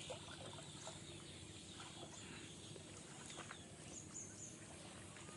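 Quiet outdoor ambience: faint hands stirring and splashing in shallow pond water, with a few faint bird chirps about four seconds in.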